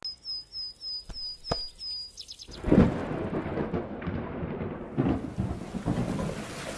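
A bird chirping, short high falling chirps about four a second, breaks off about two seconds in. A loud thunderclap follows, then steady rain.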